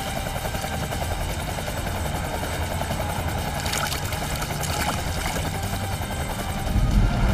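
Steady low engine drone with a fast, even beat, with short water splashes as swimmers break the surface about four and five seconds in. A deeper, louder swell of low sound comes in near the end.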